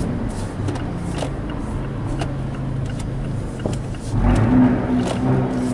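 Abarth 124 Spider's 1.4-litre turbocharged four-cylinder through a Record Monza aftermarket exhaust, heard from inside the cabin while the car creeps along at low revs. About four seconds in the throttle opens and the exhaust note grows louder and fuller, echoing off the parking garage's concrete.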